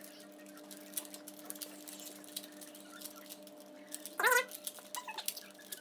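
Rubik's cube being turned by hand: a scatter of quick plastic clicks from the layers turning. About four seconds in there is a brief high-pitched wavering squeal, the loudest sound, over a steady low hum.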